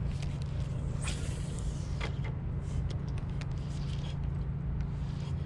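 Spinning reel being cast and cranked: short sharp clicks about one and two seconds in, then the reel turning as the fluke is retrieved, over a steady low hum.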